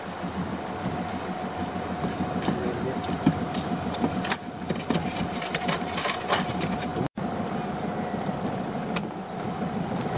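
Small fishing boat's engine idling steadily, with a few light clicks from gear being handled. The sound drops out for an instant about seven seconds in.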